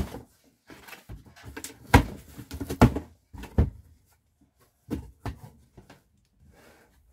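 Cardboard shipping box being opened and handled by hand: flaps rustling and scraping, with a series of short knocks, the loudest about two and three seconds in.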